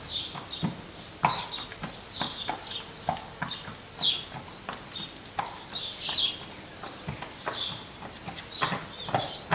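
Horse's hooves clopping irregularly on concrete, a few knocks a second, with small birds chirping over it in short falling notes.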